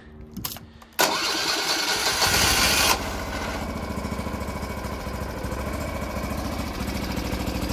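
The small gasoline engine of a YARDMAX YD8105 track barrow starting. About a second in it bursts into life loudly for a couple of seconds, then settles into a steady idle.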